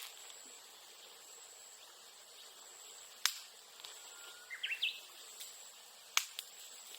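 Two sharp pops a few seconds apart, typical of bamboo cracking in a bonfire, with a Japanese bush warbler (uguisu) singing once between them: a held whistle that jumps into quick rising notes. A thin steady high insect tone runs underneath.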